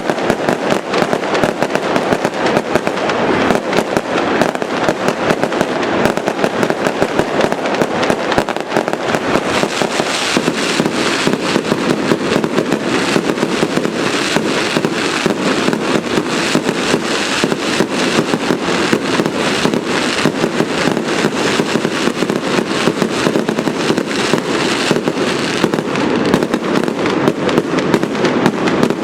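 Fireworks display in a dense, unbroken barrage: rapid bangs and crackling explosions following one another many times a second.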